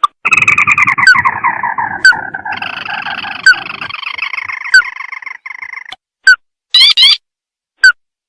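Recorded crake lure call: a long chattering trill that falls slowly in pitch, joined by a second trill about two and a half seconds in. It stops near six seconds and gives way to a few short, sharp rising call notes.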